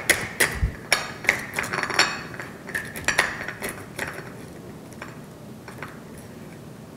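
Metal spoon tapping the top of a soft-boiled egg in a glass egg cup, cracking the shell. A quick run of light, sharp taps over the first few seconds thins out, then a few more around five to six seconds in.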